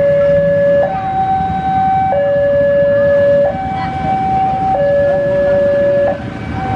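Two-tone siren alternating evenly between a low and a higher note, each held about a second and a quarter, over a steady low rumble.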